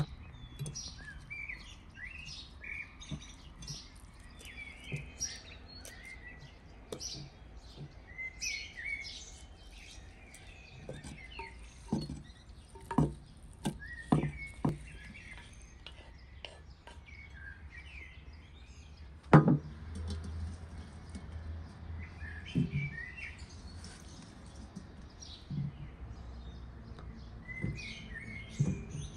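Small birds chirping and singing on and off, with scattered knocks of bowls and kitchenware being handled; the loudest knock comes about two-thirds of the way through.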